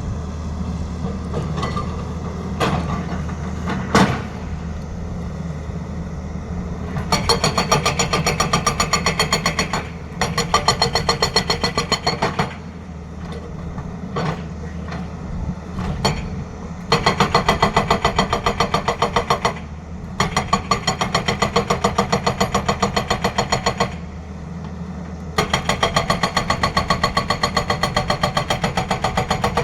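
Hydraulic breaker on a Tata Hitachi excavator hammering in bursts of rapid, evenly spaced blows, each lasting a few seconds with short pauses between. Underneath, the excavator's engine runs steadily, with a few single knocks in the first seconds.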